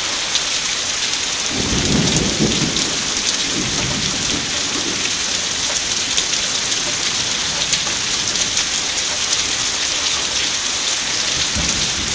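Steady rain hissing throughout a thunderstorm, with thunder rumbling about two seconds in, more faintly a couple of seconds later, and again near the end.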